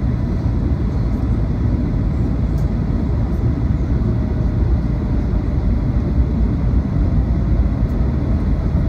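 Jet airliner cabin noise on the landing approach: a steady low rumble of engines and airflow with a faint hum, heard from inside the cabin at a window seat.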